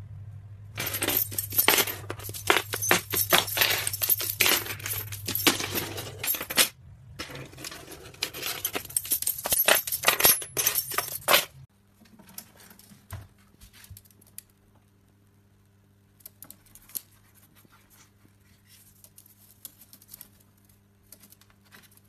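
A bunch of metal keys rattling and clinking in quick, irregular jingles as a white-bellied caique handles them, with a short pause midway. After about twelve seconds it gives way to faint, scattered taps over a low hum.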